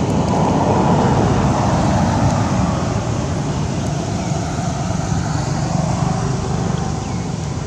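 Steady rumbling road-traffic noise, loudest in the first few seconds and then slowly easing off.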